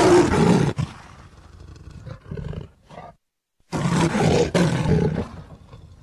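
A big cat's roar, heard twice: once at the start and again just under four seconds in, each loud and deep and then fading away.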